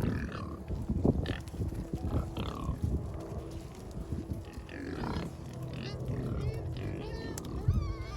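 Pigs grunting in many short, irregular bursts, with a few higher calls over them.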